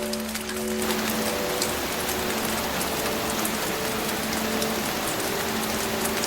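Steady heavy rain hiss that thickens about a second in, with soft held music notes underneath.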